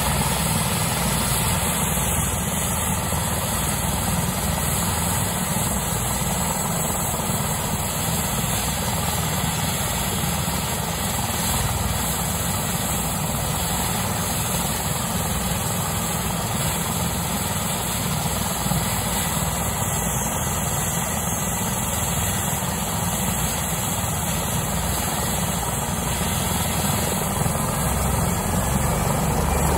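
Rescue helicopter running on the ground with its turbine engines and main rotor turning, a steady loud rotor and engine noise ahead of takeoff. It grows a little louder near the end.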